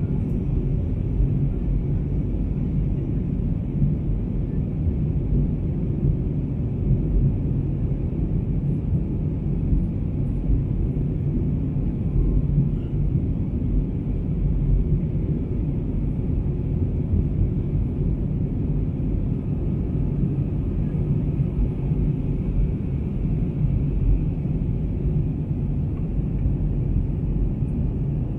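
Steady low rumble of a jet airliner's engines and rushing air, heard inside the passenger cabin as the plane descends.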